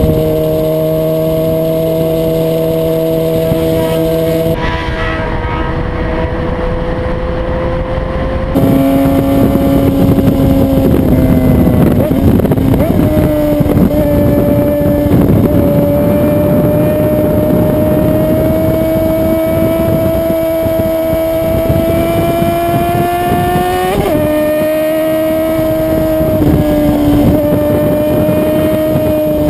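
Sport motorcycle engine running at a steady cruising speed, heard from the bike itself, with heavy wind rush over the microphone. Near the end the engine note rises briefly and then drops to a lower pitch.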